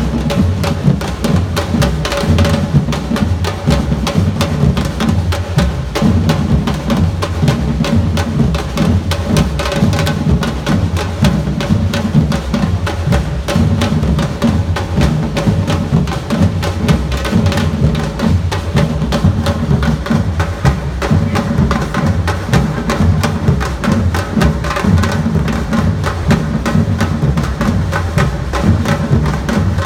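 Samba-reggae drum band playing a steady, driving groove: deep bass drums under rapid, sharp strikes from snare and high-pitched drums.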